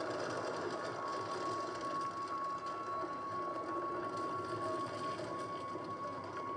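Film sound effect of a glowing rock cracking apart: a steady, dense rattling buzz with a high tone held through it, heard from a TV's speakers.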